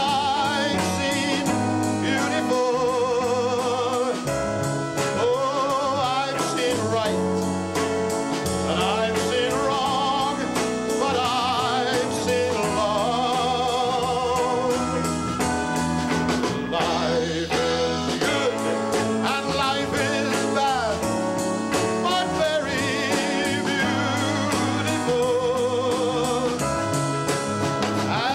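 A slow ballad played by a band, with a male singer holding long, wavering notes over the accompaniment.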